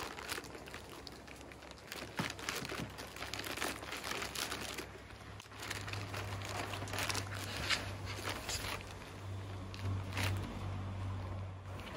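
Plastic packaging of a whole raw chicken crinkling and rustling in irregular bursts as it is handled and opened.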